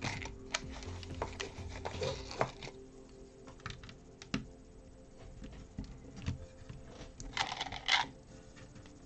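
Plastic building bricks clicking and clattering as pieces are handled and pressed together, with a longer rustle near the end, over quiet background music.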